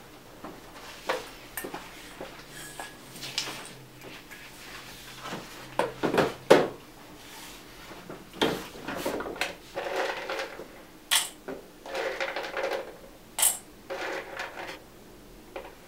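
Dried Chinese herbs and a stainless steel bowl being handled on a counter: irregular clinks, knocks and rustling scrapes, with the loudest knock about six seconds in.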